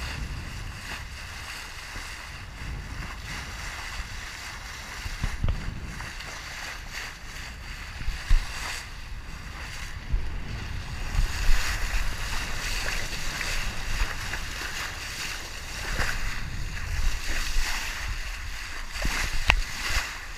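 Sea water rushing and splashing along a sailboat's hull as it sails, with wind buffeting the microphone and a few short knocks.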